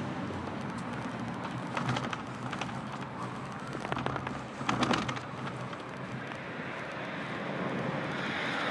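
Town street ambience with road traffic and a low steady engine hum, broken by a few short bursts of clicking about two seconds and about five seconds in.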